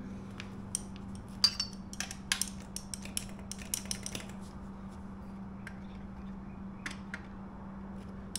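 Hand tools working a motorcycle's rear chain adjusters: a quick run of sharp metallic clicks and clinks in the first four seconds, then a few scattered taps, over a steady low hum.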